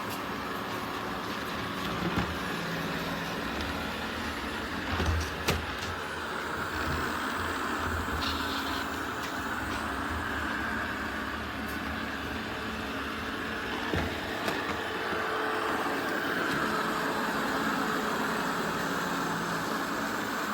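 eufy RoboVac 11S Max robot vacuum running, a steady whir from its suction motor and brushes, with a few brief knocks about two, five and fourteen seconds in.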